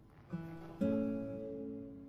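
Background music: an acoustic guitar plucks two notes about half a second apart. The second is louder, and both ring on and slowly fade.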